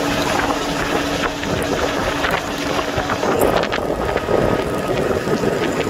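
Motorboat engine running while the boat is under way, with wind buffeting the microphone.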